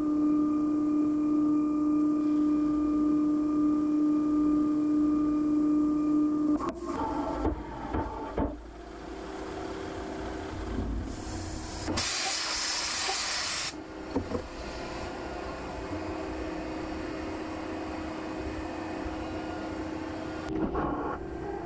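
Mazak Integrex mill-turn lathe facing the end of a spinning part under flood coolant: a steady whine from the spindle and cut for about six seconds, then it breaks off. The machine clunks and shifts as it stops, with a short burst of loud hissing midway and a quieter steady hum after.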